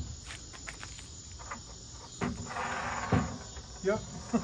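Knocks and taps on a wooden china hutch as hands work inside its top, with two heavier knocks past the middle. Crickets chirp steadily in the background.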